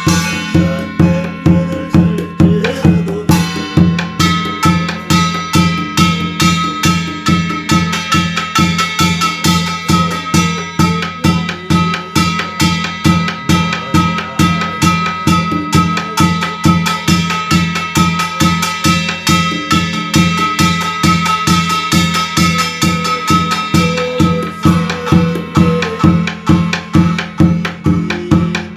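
Korean shamanic barrel drum (yanggojang) beaten in a steady, even rhythm, with the brass gongs mounted on its frame ringing along. A held high tone sounds over most of it and stops near the end.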